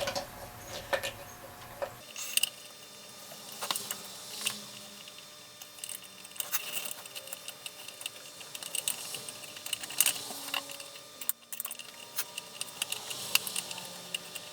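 Scattered light clicks, taps and small rattles of metal and plastic router parts and a hand tool being handled during disassembly.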